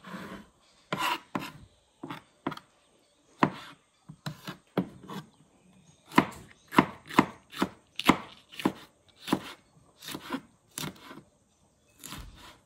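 Kitchen knife slicing maxixe (West Indian gherkins) on a cutting board: a run of sharp, irregular knocks of the blade striking the board. The cuts are spaced out at first and come quicker, about two or three a second, from about six seconds in.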